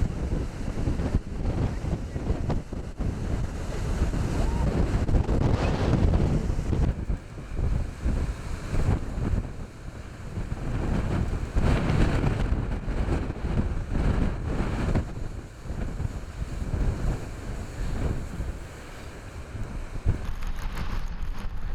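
Typhoon-force wind buffeting the microphone over heavy surf, with large storm waves crashing ashore; the noise swells and eases every few seconds as waves break.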